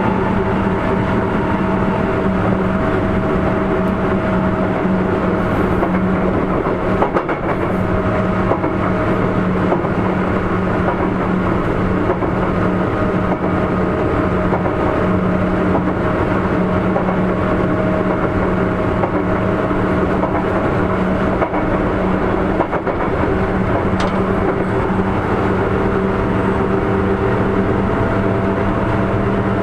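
Sotetsu 8000 series electric train running at a steady speed, heard from inside the car: continuous wheel-and-rail running noise with a constant hum, and a couple of brief jolts.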